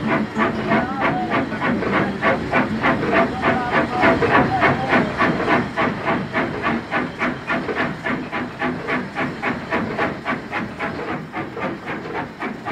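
Steam locomotive working, its exhaust chuffing rhythmically at about four beats a second with steam hiss, gradually fading toward the end.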